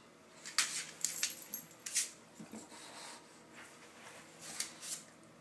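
Bulldog sniffing at a hardwood floor in short noisy bursts: several about a second in, one at two seconds, and a couple more near the end.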